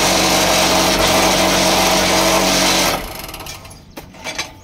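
Vibrating table of a small paving-block machine running: its electric vibrator motor shakes the steel frame and mould with a loud, steady rattling hum, compacting the concrete mix. The noise cuts off suddenly about three seconds in, followed by a few metal knocks and clanks.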